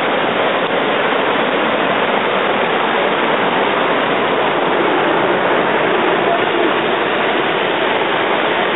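River rapids and a low weir of white water rushing, a loud steady rush with no breaks.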